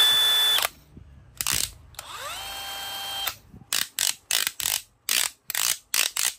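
DeWalt DCD999 20V brushless hammer drill running free under the trigger and cutting off just under a second in, then a second, slower run that winds up and holds for about a second. After that comes a quick irregular series of sharp ratchet clicks as the chuck and the clutch collar are twisted by hand.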